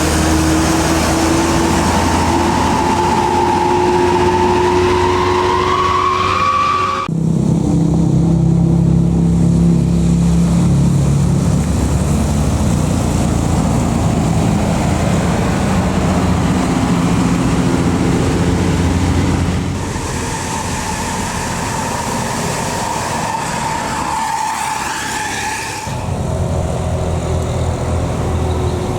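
Heavy buses and trucks climbing a hill, engines running under load, in several cut-together passes. A whine rises in pitch over the first few seconds before the first cut.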